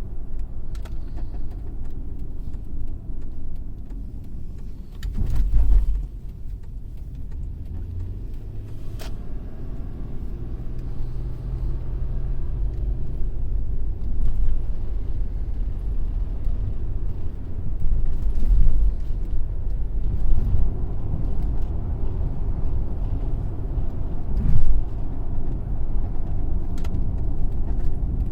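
Car being driven, with a steady low rumble and a few brief louder knocks, about five seconds in and again near the end.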